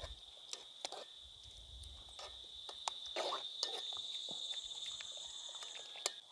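A metal spoon stirring in a metal pot of grated green banana, clinking and scraping against the pot in scattered sharp knocks, over a steady high insect drone.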